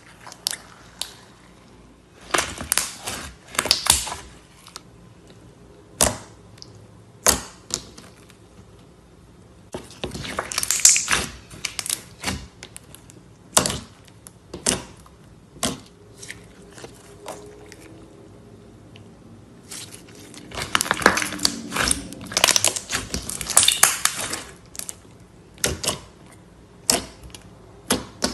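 Clear glitter slime being pressed and squeezed by hand, giving short sharp pops and clicks at irregular intervals, with longer runs of crackling squelches.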